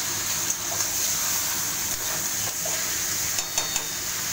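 Raw skin-on chicken pieces sizzling in hot oil in a wok while a metal spatula stirs them, with short scraping clicks of the spatula against the pan, several in quick succession near the end. The chicken is being seared just after going in on top of the fried onions.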